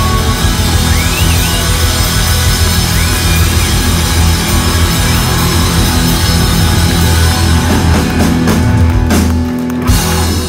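Live rock band, drum kit and amplified instruments, playing loud in a full band sound. It thins out near the end and stops on a couple of sharp final hits.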